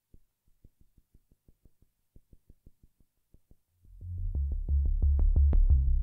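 Korg Polysix analog synthesizer playing a fast sequenced bass line of repeating low notes, coming in loud about four seconds in. Before it, only faint even ticking at about six a second.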